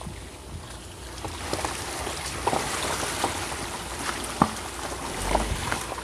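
Standard road tyres rolling through a wet, muddy gravel track, with water splashing and sloshing and many short clicks and knocks of stones and grit under the tread.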